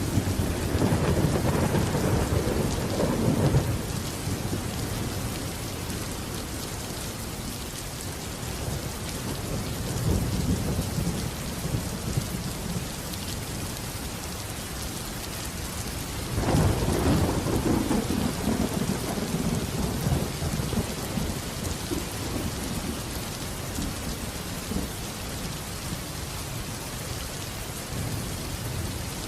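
Steady rain with rolling thunder: a long rumble in the first few seconds, a fainter one around ten seconds in, and another long roll beginning a little past the middle.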